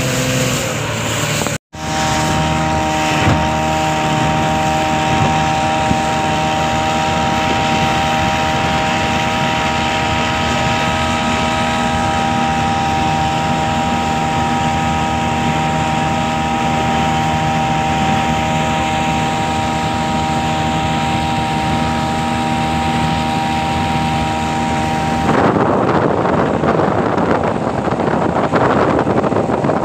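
Speedboat engine running at a steady cruising speed under the rush of water and wind. Near the end the steady engine drone gives way to a rougher rushing noise of wind and water.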